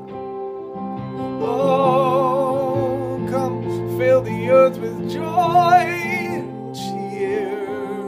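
A man singing long, wordless lines with wide vibrato over sustained electronic keyboard chords, in two phrases.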